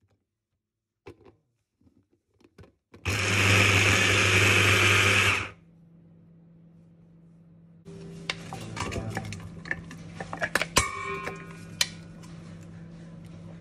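Kenwood hand blender with its chopper attachment running for about two and a half seconds, chopping onion and garlic, after a few light clicks as it is fitted. Then a spatula scrapes the chopped onion out of the plastic chopper bowl into a stainless steel bowl, with scrapes and sharp knocks.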